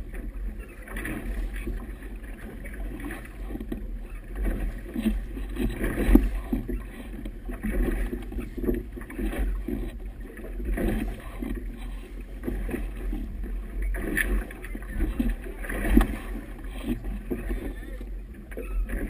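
Choppy river water slapping and splashing against the hull of a boat under way: irregular splashes over a steady low rumble.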